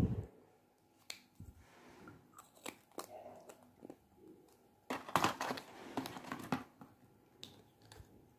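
Plastic lipstick tubes clicking and clattering as they are picked through and handled, with scattered light taps and a louder crinkling rustle about five seconds in.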